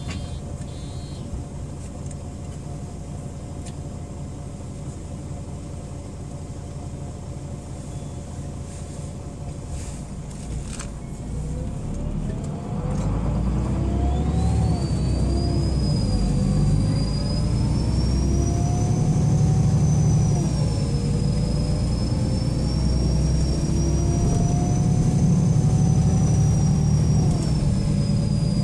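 Interior sound of a MAN Lion's City G articulated city bus: the diesel idles steadily at a stop, then about twelve seconds in the bus pulls away and accelerates. The engine pitch climbs and drops back several times as the automatic gearbox shifts up, with a high whine rising and then holding.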